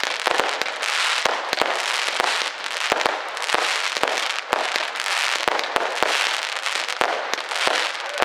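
Fireworks going off: a continuous crackling hiss with many sharp bangs at irregular intervals, often two or three a second.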